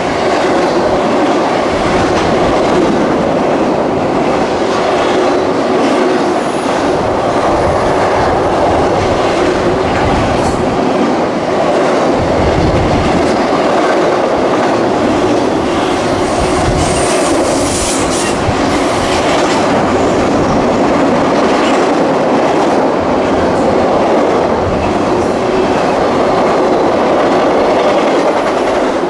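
Freight train cars rolling past in a steady loud rumble of steel wheels on rail, clicking over the rail joints, with a brief high wheel squeal about two-thirds of the way through.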